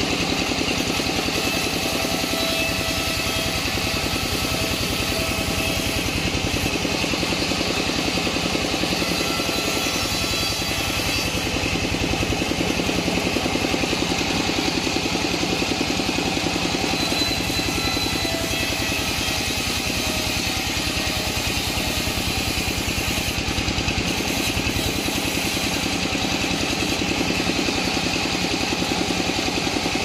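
Engine-driven sawmill saw running steadily as waru wood planks are fed through it: a continuous dense mechanical drone with a fast, even pulsing that holds the same level throughout.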